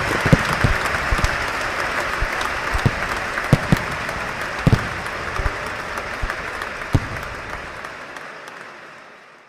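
Applause from a crowd, with scattered dull booms of firework shells bursting overhead; the whole sound fades out over the last few seconds.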